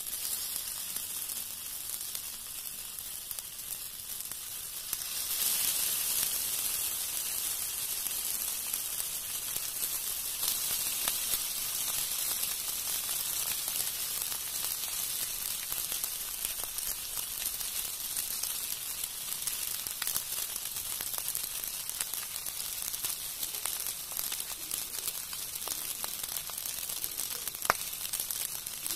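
Masala-coated fish steaks shallow-frying in hot oil in a cast-iron pan: a steady sizzle that grows louder about five seconds in, with scattered crackles and one sharper pop near the end.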